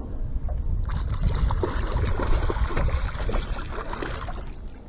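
Water splashing and sloshing beside the boat, from about a second in until near the end, as a hooked catfish thrashes at the surface while being reeled in. A low rumble runs underneath.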